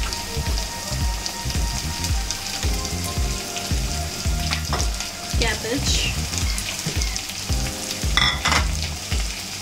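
Chopped vegetables (onion, potato and freshly added tomato) sizzling steadily in hot oil in a non-stick kadai, with a brief louder noise about eight seconds in as chopped cabbage goes into the pan.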